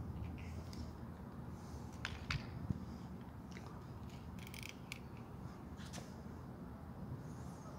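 Plastic wraparound sunglasses being handled and adjusted on the face: a series of light clicks and short scrapes, the sharpest a couple of seconds in, over a steady low rumble.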